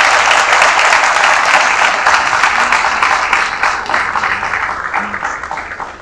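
Audience applauding in a hall, dense clapping that thins out and fades over the last couple of seconds.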